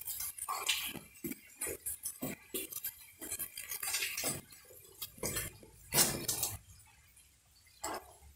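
A string of irregular light clinks and knocks of hard objects, the loudest about six seconds in.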